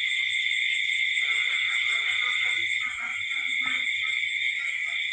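Insects chirring in a steady, high-pitched chorus that runs without a break, with soft voices underneath from about a second in.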